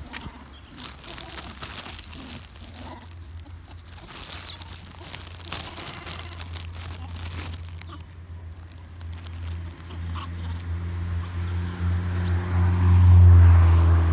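Crinkling and clicking of a thin plastic food container as a vervet monkey picks food out of it. A low droning hum swells louder near the end.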